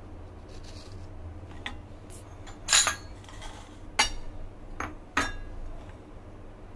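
Steel table knife scraping cream off Oreo biscuits and clinking against ceramic bowls: several short sharp clinks, the loudest about three seconds in, over a low steady hum.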